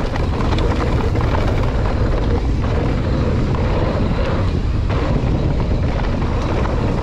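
Wind rushing over the microphone on a fast mountain bike descent, with the tyres rolling over a dirt trail and the bike chattering over bumps, a steady loud rumble throughout.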